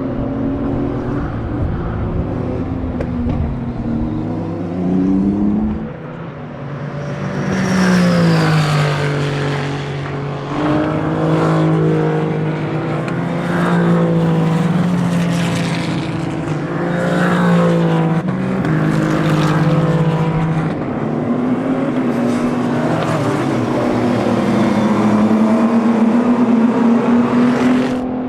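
Race car engines at speed on a circuit, their pitch climbing and dropping with throttle and gear changes, with cars passing by.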